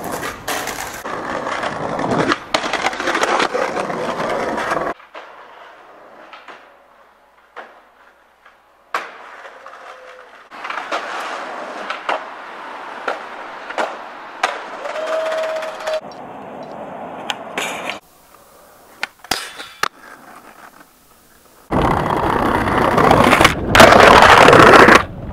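Skateboard wheels rolling over concrete and tiles, with sharp clacks of the board hitting the ground as tricks are popped and landed. The rolling is loudest and fastest near the end.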